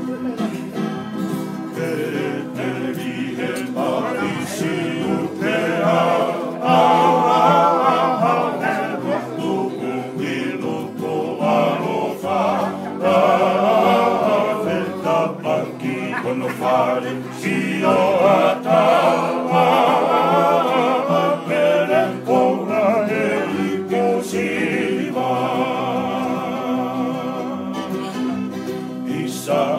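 Men singing together to a strummed acoustic guitar and ukulele.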